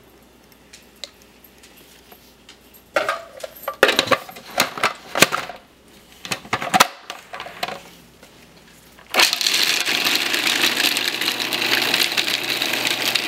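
Plastic clatter and clicks as a food processor's lid is fitted and latched, then, about nine seconds in, the food processor's motor starts and runs steadily, blending pesto with whole pine nuts.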